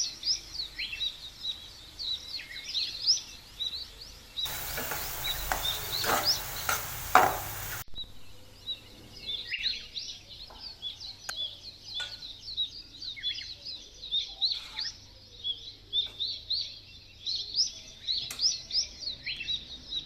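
Many small birds chirping rapidly and continuously. About four seconds in, a loud hiss with clicks in it covers them for about three and a half seconds, then stops suddenly.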